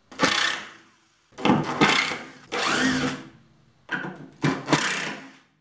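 A power tool run in five short bursts, each starting and stopping within about a second.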